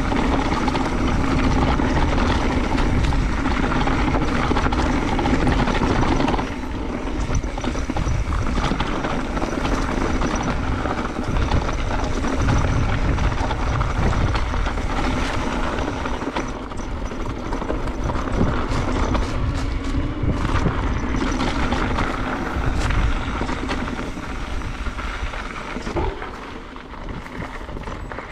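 Mountain bike ride on a dirt trail heard from the rider's camera: wind buffeting the microphone in a steady rumble, with tyre noise and frequent rattles and knocks from the bike. It is loudest for the first six seconds or so, then drops a little, and fades near the end.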